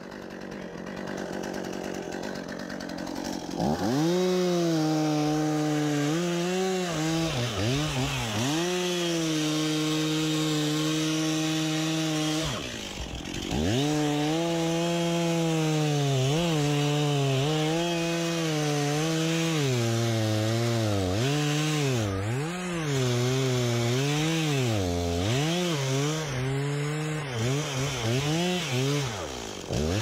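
Stihl two-stroke chainsaw cutting into the trunk of a standing tree. It runs quietly for the first few seconds, then revs up to full throttle about four seconds in. Its note dips again and again as the chain bogs in the wood, and it eases off once around the middle before picking up again.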